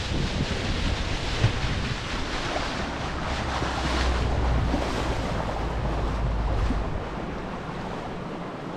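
Wind buffeting the microphone over the rush and slap of sea water around a small motorboat under way. The low rumble eases off near the end.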